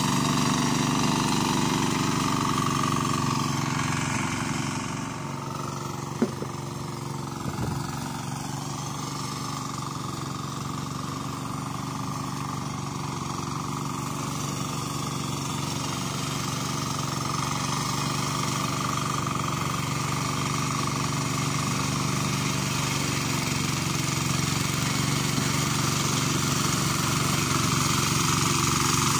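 Turtle-type tiller's Yamma 12 hp single-cylinder diesel engine running steadily under load as it churns through deep paddy mud. It fades a little as it moves off and grows louder again as it comes back towards the end. One sharp click about six seconds in.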